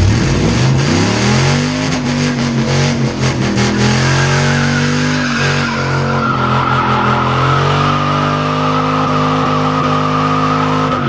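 Car engine revving up over the first second or two and held at high revs while the rear tyre spins on a steel plate in a burnout. A steady tyre squeal joins about halfway through, and the revs start to fall right at the end.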